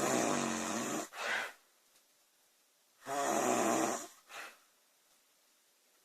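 A woman snoring loudly: two snores about three seconds apart, each about a second long with a short, softer breath sound just after it.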